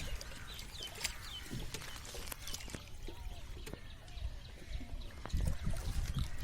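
Birds chirping in short calls, with a low rumble rising near the end.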